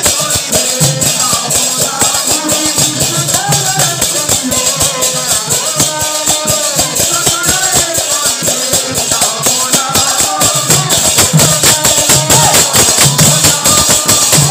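Devotional kirtan played live: voices singing a melody over fast, steady jingling hand percussion and a recurring low drum beat.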